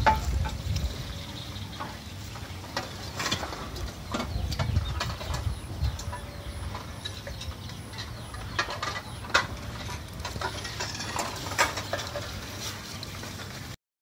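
Rustling and scratching in a society finch nest of dry grass, with scattered light clicks and low bumps as the birds shift about in the nesting material. The sound stops abruptly near the end.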